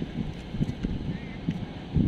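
Wind buffeting the microphone in uneven gusts, a low rumble that swells and fades.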